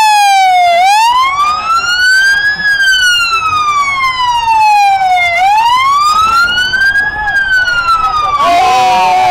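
Police siren on a sheriff's patrol SUV, wailing in a slow rise and fall, each sweep taking a few seconds. A second siren tone overlaps it near the end.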